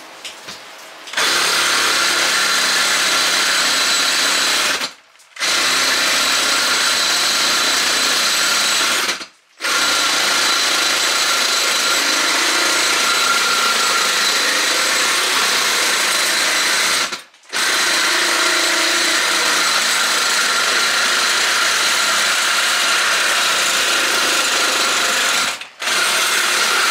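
Milwaukee cordless reciprocating saw cutting through a metal tube tire mount clamped in a vise. It runs in long stretches from about a second in, with four brief stops along the way.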